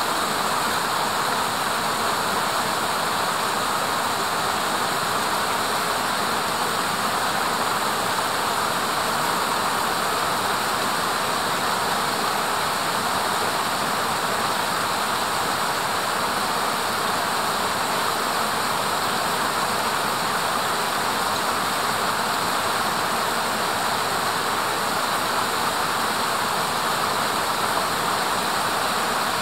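Stream water rushing steadily: an even, unbroken hiss.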